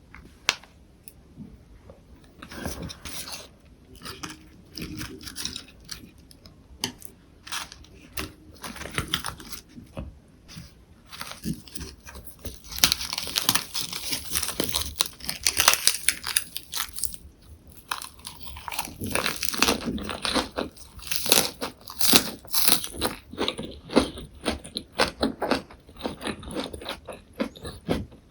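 Close-miked chewing of lettuce and perilla-leaf wraps with tofu: irregular crisp crunches of the leaves, busiest in two stretches in the second half.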